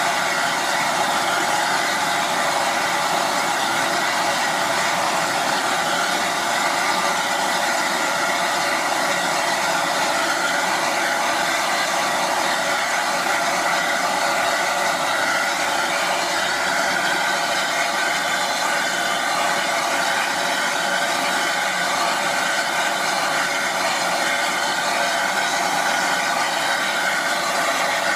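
Steady hiss of steam from Southern Railway U class 2-6-0 steam locomotive No. 1638 as it stands ready to depart. There are no distinct exhaust beats.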